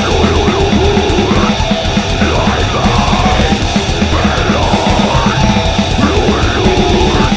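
Heavy metal music with a fast, steady drum beat and harsh yelled vocals over a dense band sound.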